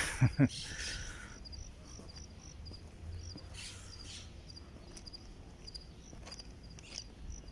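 Crickets chirping, a steady even run of short high chirps, with a few crunching footsteps on the railway track ballast.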